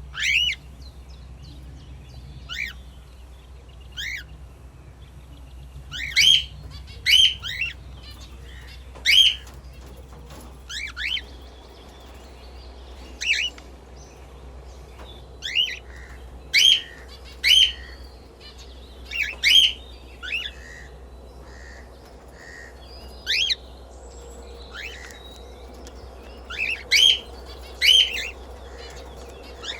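Small pet parrots (cockatiel and budgies) chirping: short rising chirps at irregular intervals, often in quick pairs, over a steady low hum.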